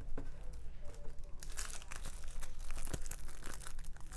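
Clear plastic packaging crinkling as it is picked up and handled, with small crackles and clicks. It is light at first and turns dense about a second and a half in.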